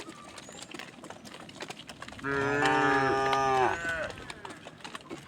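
A cow mooing once, a single long call of about a second and a half, starting a little over two seconds in.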